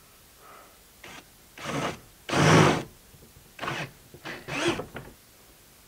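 Power drill with a 3/8-inch twist bit boring a hole through a plastic kayak's gunwale, run in several short trigger bursts. The longest and loudest burst comes about two and a half seconds in.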